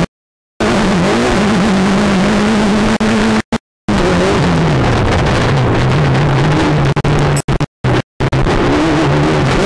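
Mitsubishi Evo turbocharged four-cylinder engine racing, heard from inside the off-road sedan's cabin. The engine note holds steady, drops in pitch in steps from about four seconds in, then climbs a little near the end. The sound cuts out completely for short moments several times.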